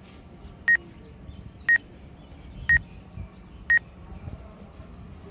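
Short, high electronic beep repeating evenly once a second, four times, over a faint low rumble.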